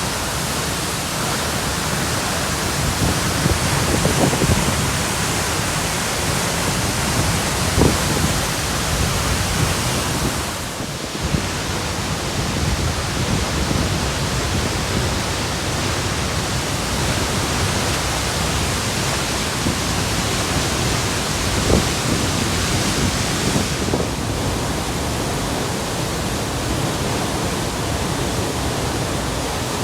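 A large waterfall pouring close by: a loud, steady rushing roar that dips briefly about a third of the way in.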